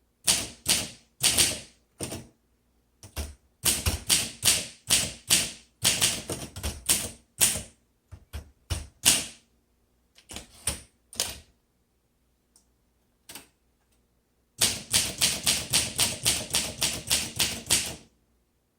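1957 Olympia SM3 manual portable typewriter being typed on: sharp keystroke clicks as the typebars strike, in uneven bursts. About twelve seconds in there is a short pause, followed by a fast, even run of about five strokes a second.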